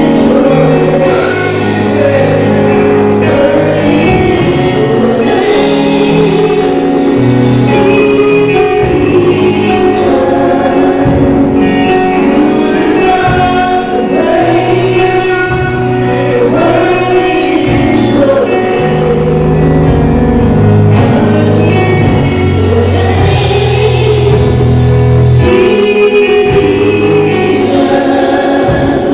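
Gospel choir singing over a live band, with sustained low bass notes and percussion hits.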